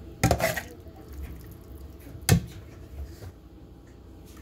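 Kitchen handling noises: a short rustling scrape about a quarter second in, then a single sharp knock about two seconds later and a faint tap after it.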